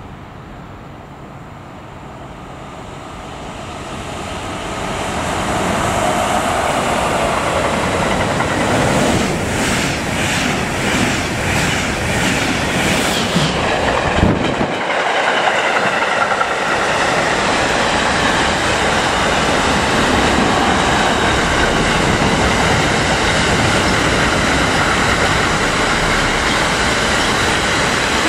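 Freight train of double-deck car-transporter wagons, hauled by an electric locomotive, passing through a station at speed. The noise builds over the first few seconds as it approaches, wheels click rhythmically over the rails as the front passes, then the wagons roll by with a steady loud rumble and rattle.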